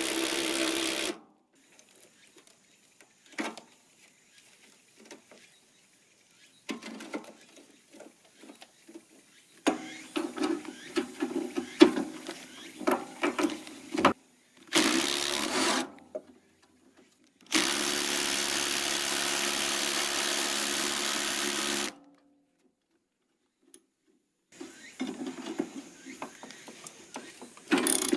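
A handheld electric power tool, like a drill, runs in bursts of a few seconds with a steady motor whine; the longest burst runs about four seconds. Between the bursts come irregular metallic clatters and knocks of parts being handled.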